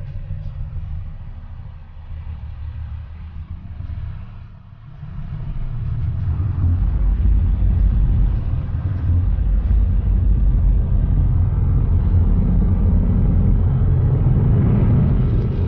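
Low, steady rumble of a moving vehicle on the road, with wind and road noise. It dips briefly about four seconds in, then grows louder and holds steady.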